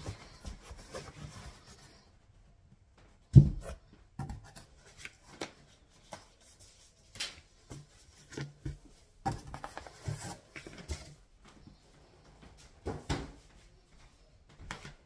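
Cardboard shipping carton and packaging being handled: scattered rustles, scrapes and knocks, with one loud thump about three seconds in.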